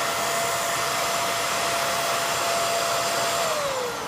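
Hoover Air Lift Deluxe upright vacuum cleaner running with a steady whine. About three and a half seconds in it is switched off, and the motor's pitch falls as it spins down.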